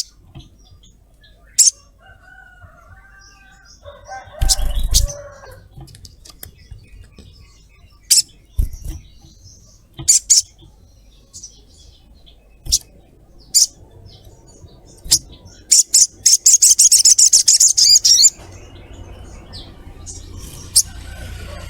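Sogok ontong sunbird calling: sharp, high single chirps scattered every second or two, then a fast, high rattling 'cret-cret' trill about sixteen seconds in that lasts about two seconds. Lower-pitched calls and a dull thump come a few seconds in.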